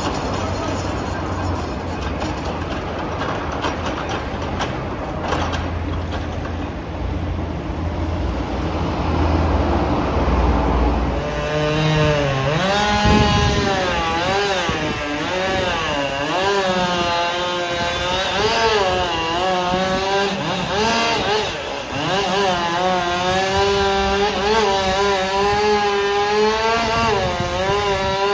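A low, rumbling noise, then from about twelve seconds in a chainsaw running hard. Its pitch rises and falls as it revs and bogs down while cutting wood.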